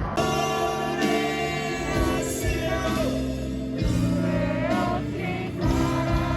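Music with singing: a melodic vocal line over sustained chords, beginning abruptly.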